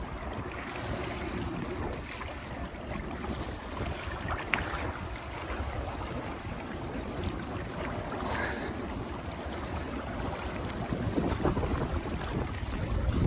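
Wind buffeting the microphone over a low, unsteady rumble from the passing lake freighter American Integrity, with a single sharp click about four and a half seconds in.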